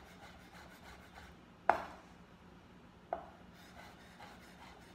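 Chef's knife slicing soft grilled piquillo peppers on a wooden cutting board: quick light taps of the blade on the board, with two louder knocks, the first near the second second and the next about a second and a half later.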